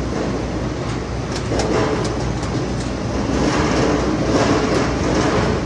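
Potato brush-roller washing and peeling machine running steadily, with a few sharp knocks about a second and a half in as a bucket of potatoes is tipped into it.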